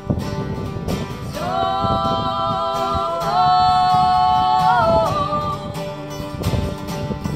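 Live acoustic band music: strummed guitar with a long held, wavering sung note from about one and a half to five seconds in, rising a step partway through.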